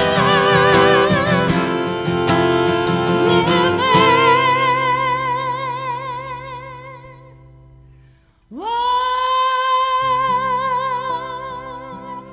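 A woman sings with wide vibrato over a strummed acoustic guitar, with a violin accompanying. About four seconds in, a last chord rings out and fades almost to nothing. Then a long note slides up and is held with vibrato over quieter sustained notes beneath.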